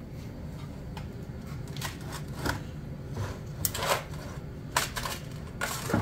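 Scattered clicks, knocks and short scrapes of hands and tools working on a motorcycle's battery compartment, with plastic and metal parts being handled, over a low steady hum.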